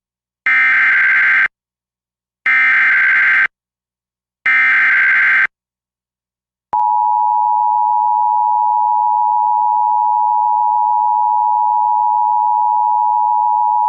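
Emergency Alert System header: three one-second bursts of SAME digital data, a second apart. About seven seconds in, the steady two-tone EAS attention signal starts.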